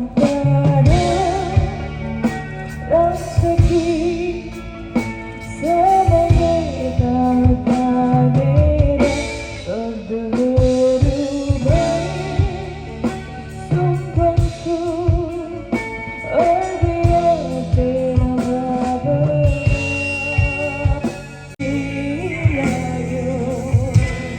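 A song with singing over guitar, bass and drums.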